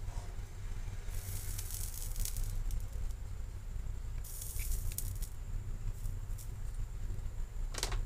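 Soldering iron melting solder on a circuit-board joint: two short sizzles of flux, about a second in and again near the middle, with a few small clicks over a steady low hum. A sharp knock near the end.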